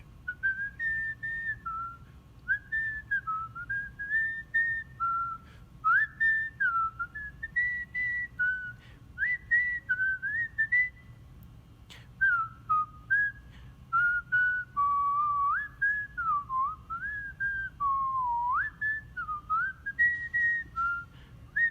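A person whistling a tune: a single clear whistled melody in short phrases, with notes sliding up and down, over a faint steady tone.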